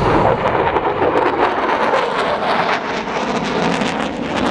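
Jet noise from an EA-18G Growler's twin General Electric F414 turbofans as the jet turns and passes. The noise is loud and rushing, with a crackle running through it.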